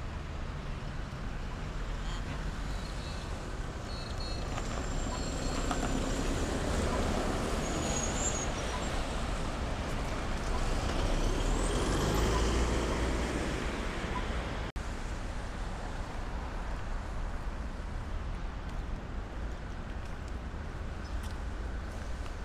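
Road traffic: vehicles passing through an intersection, swelling to its loudest as a utility truck passes close about halfway through. After an abrupt cut, a steadier, slightly quieter street traffic hum.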